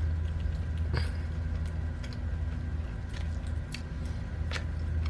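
Quiet chewing of food, with a few faint mouth clicks over a steady low hum.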